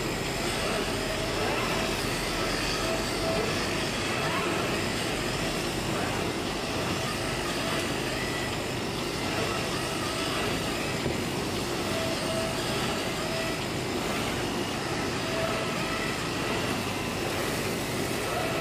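Automatic CNC fabric cutting machine running: a steady mechanical whir that does not let up, with a few short faint whines now and then as the cutting head moves.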